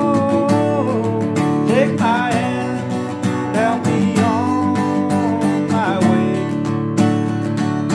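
Steel-string acoustic guitar strummed steadily in chords, with a melody line of held, bending notes on a rack-mounted harmonica over it.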